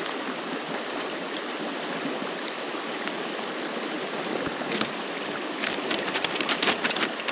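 Shallow creek water rushing steadily over rocks. In the second half comes a quick run of sharp splashes and clicks as a hooked trout thrashes in the landing net while being unhooked.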